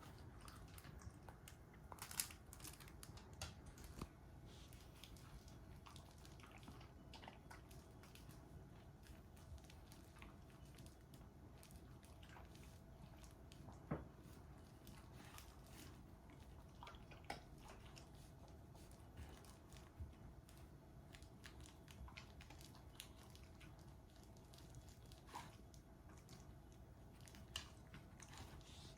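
Near silence: quiet room tone with a faint steady hum and a few soft, scattered clicks at irregular intervals.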